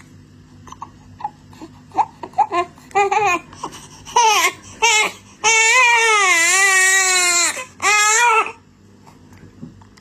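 Baby fussing in short whimpering cries that build to one long, wavering wail about five and a half seconds in, followed by a shorter cry.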